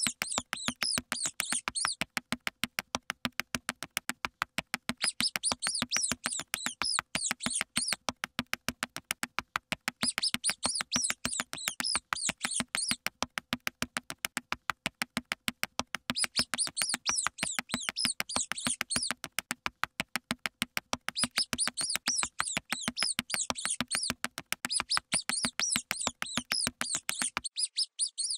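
Mouse squeak sound effects: high-pitched chirping squeaks in bursts of two to three seconds with short pauses between. Under them run a fast, even pattering of about four or five clicks a second and a low steady hum; the clicking and hum stop about a second before the end.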